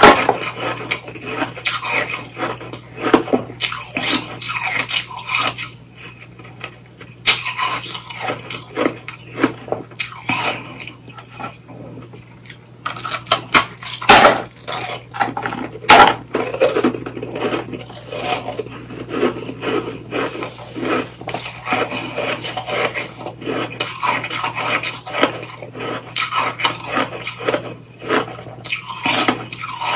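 Hard ice being bitten and chewed close to the microphone: an edible ice popsicle, white ice frozen onto a clear ice stick, giving irregular sharp cracks and crunches. The two loudest snaps come about halfway through.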